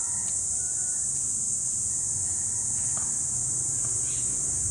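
Steady, high-pitched drone of insects, unbroken throughout, with a few faint ticks underneath.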